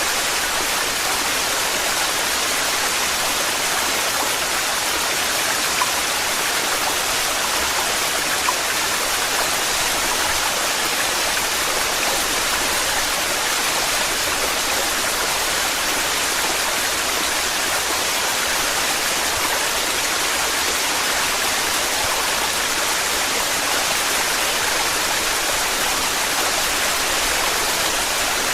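Torrential waterfall: a steady, unbroken rush of falling water.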